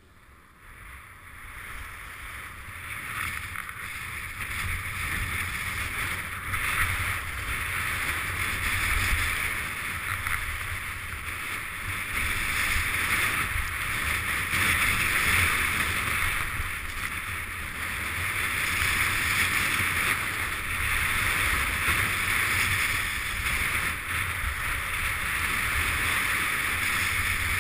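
Skis hissing and scraping over packed, groomed snow while skiing downhill, with wind rumbling on the microphone. The sound builds up over the first few seconds as the skier gathers speed, then holds steady.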